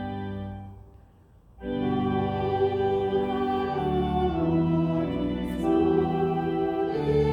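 Pipe or church organ playing, held chords that change every second or so, with a brief break about a second in before the next chord sounds.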